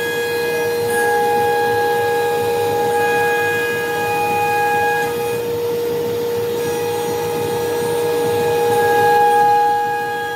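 CNC router's spindle whining at a steady pitch as it cuts grooves into a board, with higher tones from the cut coming and going as the bit travels.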